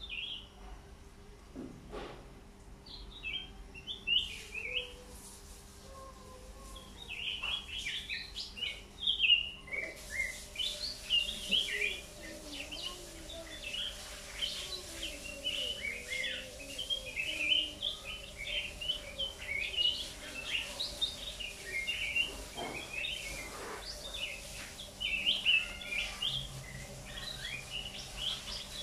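Caged cang meratus songbird singing short high chirps and trills. They come sparsely at first, then turn into a fast, nearly continuous twitter about a third of the way in, over a faint steady hum.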